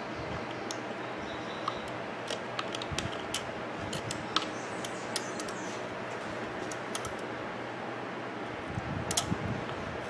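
Irregular small clicks and taps of a hand tool against the metal brush holder of a blender motor, as the carbon brush is worked free, over a steady background hum.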